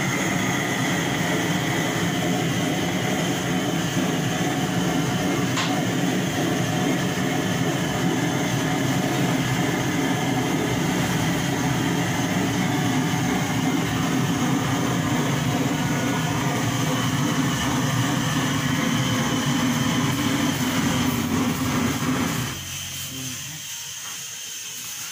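Blowtorch with a brass fuel tank burning loudly and steadily as it singes the hair off a goat carcass. It is shut off about 22 seconds in, leaving a fainter hiss.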